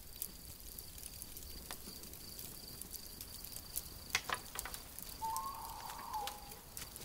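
Faint night-time woodland ambience: a steady high cricket trill with scattered sharp crackles from a campfire, and a short call about five seconds in.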